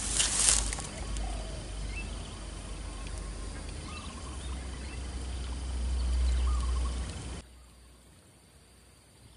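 A sharp splash about half a second in as a soft frog lure hits the water, followed by a steady wash of outdoor noise with low wind rumble on the microphone while the lure is drawn back across the surface, and a few bird calls. The noise drops off suddenly near the end.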